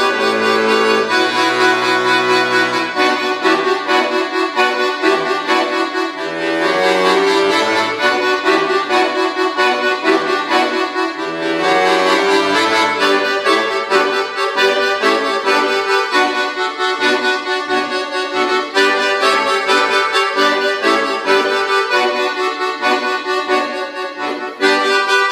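Chromatic button accordion playing a classical solo, full chords and many quickly changing notes; a short break about a second before the end, then the playing comes back in loudly.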